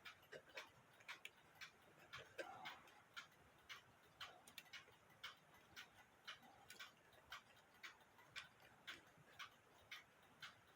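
Unmarked mechanical alarm clock, thought to be German-made around 1920, ticking faintly and steadily at about two ticks a second.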